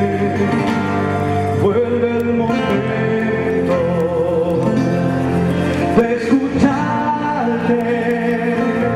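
A song with a man singing over guitar and other instruments.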